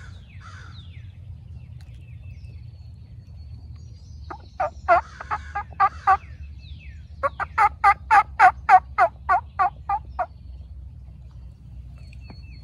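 Wild turkey gobbling loudly at close range, in two bouts of rapid rattling notes, the second longer and louder.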